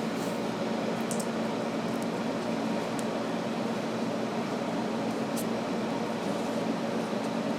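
Steady, fan-like mechanical hum with a low drone, and a few faint light ticks.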